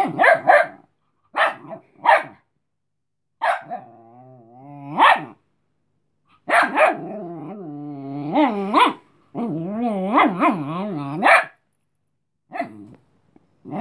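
Chihuahua puppy barking and growling at another dog to warn it off: a few short, sharp yaps, then long warbling growls that rise and fall in pitch, and a couple more yaps near the end.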